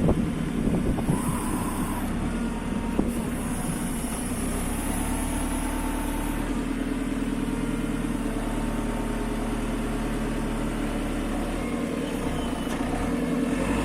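JCB 3CX backhoe loader's diesel engine running steadily at a low, idle-like speed.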